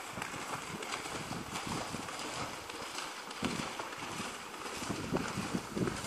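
A horse galloping through shallow floodwater, its hooves splashing steadily, with wind buffeting the microphone in irregular gusts from about three and a half seconds in.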